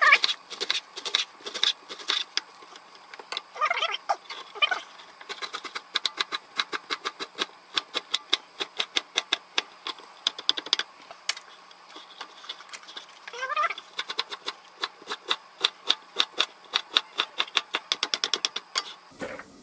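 Chef's knife slicing cabbage finely on a plastic cutting board: a quick, steady run of sharp knocks, several a second, as the blade cuts through the leaves onto the board, with a couple of short breaks.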